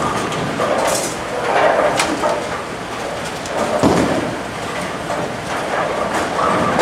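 Bowling-alley din: people chatting, balls rolling and pins clattering on the lanes. Sharp clacks come about one and two seconds in.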